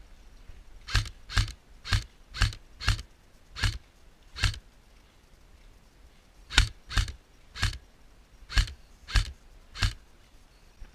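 Airsoft gun firing single shots, about thirteen sharp cracks in two strings: seven in roughly three and a half seconds, a pause of about two seconds, then six more.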